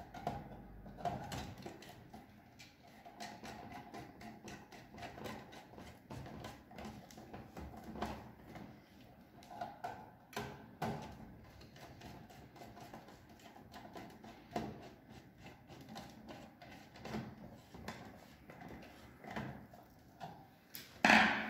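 Faint, scattered clicks and small scrapes from a screwdriver turning the screws of a Siemens inverter drive's output terminals as wires are fitted into them.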